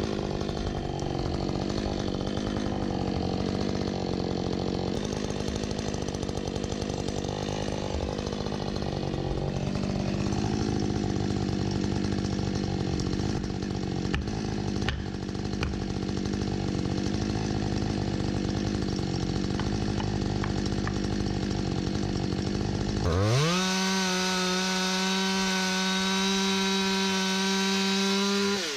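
Two-stroke chainsaw running at high revs, cutting into wood under load. About 23 seconds in, the engine dips and then climbs to a clean, steady high rev with nothing to cut. It drops back toward idle at the very end.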